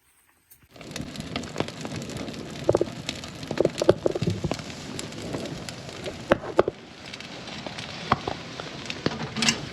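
Steady rain falling, with many scattered sharp clicks and knocks through it. It starts abruptly just under a second in.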